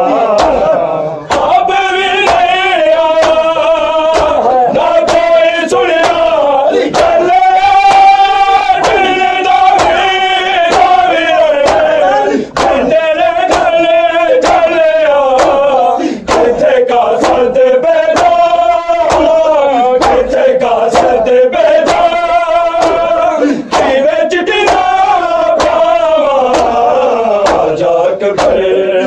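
Noha lament chanted by male voices, sung in long held, wavering notes, with sharp beats at an even pace that fit the chest-beating (matam) that accompanies it.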